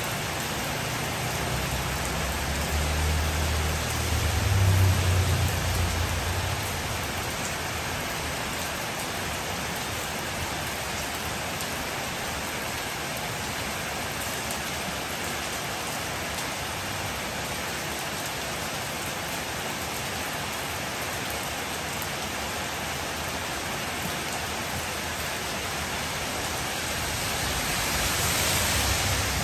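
Steady heavy rain falling on the street. A motorbike engine rumbles past, loudest about five seconds in, and near the end a car's tyres hiss over the wet road.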